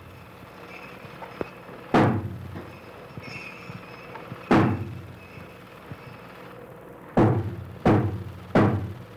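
A deep ceremonial drum beaten in single heavy strokes, each ringing out briefly: two slow beats about two and a half seconds apart, then three quicker beats near the end.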